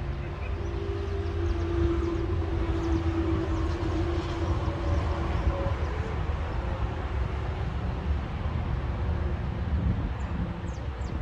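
Steady low rumble of wind on the microphone, with a distant engine droning at one steady pitch for roughly the first five seconds before it fades.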